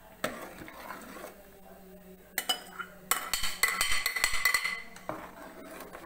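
Metal kitchen utensils clinking and knocking against a cooking pot as tomatoes are added: a few separate clinks, then a quick run of metallic clattering with a ringing tone in the middle, and one more knock near the end.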